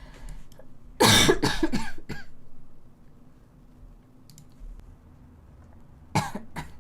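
A young woman coughing: a fit of several hacking coughs about a second in, then two short coughs near the end. It is a lingering cough that is not easing off.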